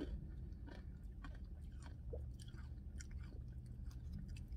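Faint close-up chewing of a mouthful of ice cream with chocolate-covered pretzel pieces: irregular small mouth clicks over a low steady hum.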